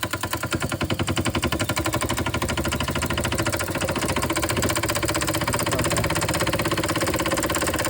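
Bing 141/2 toy steam engine running fast on steam, a quick, even chuffing of exhaust puffs at several beats a second. It is running faster than its owner expected, with the regulator too far open.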